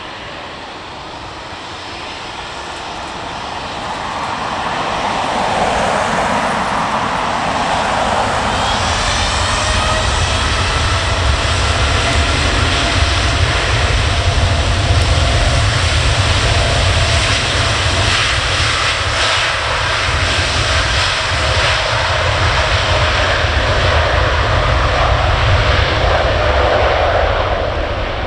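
Airliner engines growing louder over the first few seconds, then running loud and steady, with a deep rumble under a high whine.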